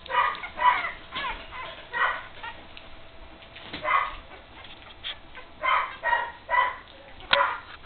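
Three-week-old puppies giving short, high squeaks and whimpers, about nine separate cries, bunched most closely in the second half.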